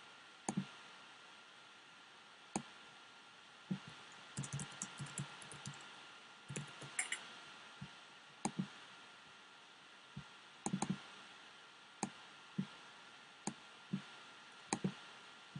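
Computer mouse clicks and keyboard keystrokes, faint: scattered single and double clicks, with a quick run of taps about four to six seconds in.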